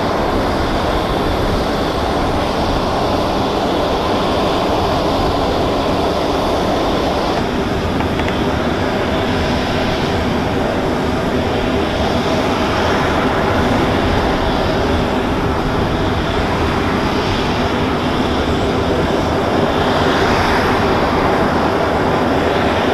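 Steady loud jet roar and whine of a C-17 Globemaster III running on the ground.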